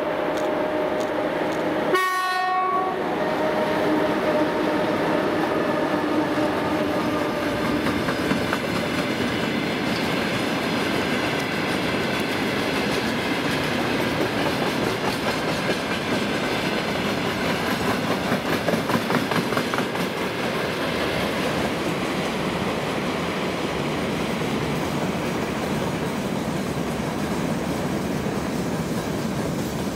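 2TE116 twin-section diesel locomotive passing under power, its steady engine drone fading over the first several seconds, then a freight train's wagons rolling by with wheels clattering over the rail joints, loudest about two-thirds of the way through. A brief sharp burst about two seconds in.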